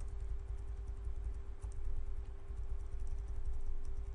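Small clicks of a computer mouse and its scroll wheel over a low rumble and a steady hum.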